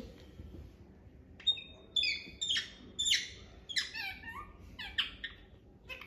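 Rose-ringed (Indian ringneck) parakeet chattering: a quick run of about eight short, high chirps with fast pitch sweeps, starting about a second and a half in.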